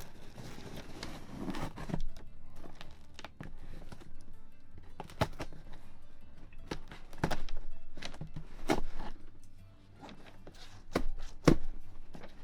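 A cardboard shipping box being opened and handled: scraping and rustling as the tape and cardboard are worked open, then a series of irregular knocks and thunks as the flaps and packed contents are moved.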